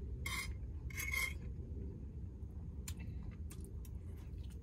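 A fork scraping across a plate twice in quick succession, then a few faint clicks of chewing, over a steady low hum.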